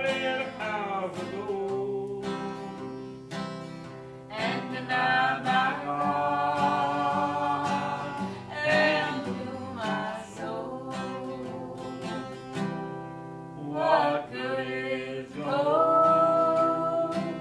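Acoustic guitar strummed in steady chords while a man and a woman sing a song together, the voices pausing briefly between lines.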